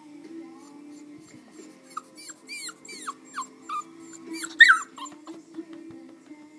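English Springer Spaniel puppy whimpering: a string of short, high whines, each falling in pitch, the loudest about four and a half seconds in. The puppy is unsettled and can't get comfortable.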